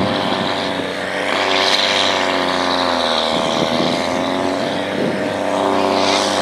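Case IH Puma tractor's six-cylinder diesel engine running hard under load as it pulls a weight-transfer sled, a loud, steady engine note.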